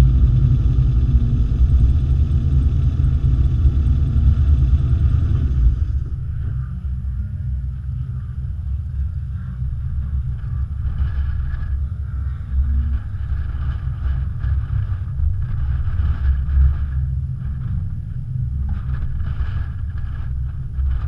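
A stationary sprint car's engine idling with a steady low rumble. About six seconds in, the higher whirring part of the sound cuts off sharply, leaving a lower, uneven rumble.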